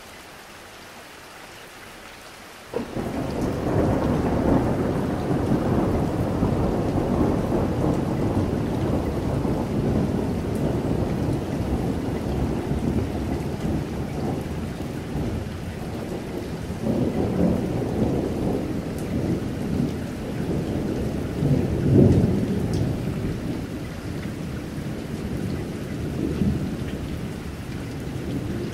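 Thunderstorm: steady rain with rolling thunder, cutting in suddenly about three seconds in, with the loudest roll of thunder about three-quarters of the way through.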